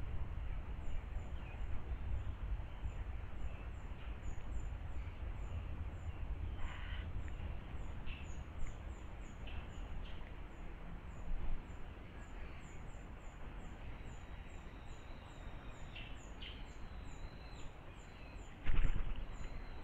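Outdoor ambience: a steady low rumble under a run of short high calls repeating about twice a second, with a loud brief burst near the end.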